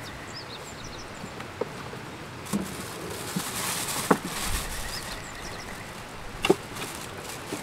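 Someone moving about and handling gear: a few sharp knocks and clatters, the loudest about four and six and a half seconds in, with rustling between about three and five seconds. A small bird chirps a few times in the first second.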